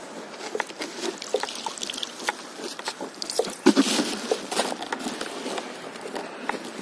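Water lapping and dripping around a stand-up paddleboard as a wet rope is hauled in, with many small splashes and drips and a louder splash about three and a half seconds in.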